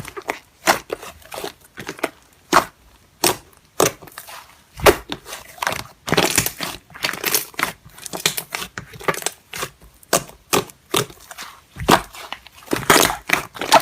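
Slime being squished and pressed by hand, making irregular sharp pops and clicks with a few longer noisy stretches.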